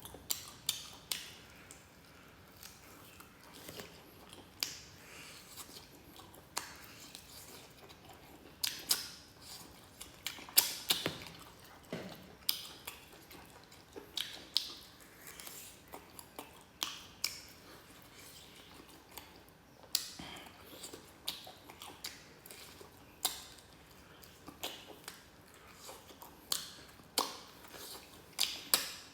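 A person chewing and eating with no talking: irregular crisp crunches and mouth clicks, one to several a second, with a few louder bites now and then.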